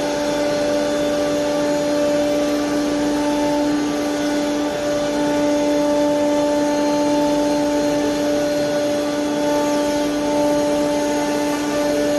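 CNC router spindle milling grooves into a wood panel: a steady pitched tone with its overtones held constant over the noise of the bit cutting.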